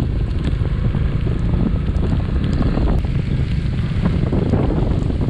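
Heavy wind buffeting the microphone of an action camera on a moving motorcycle, a steady loud low rumble with scattered small ticks through it.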